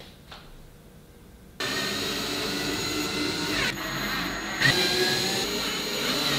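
Cordless drill starting up about one and a half seconds in and running steadily as it works into the wall, with a shift in tone partway through.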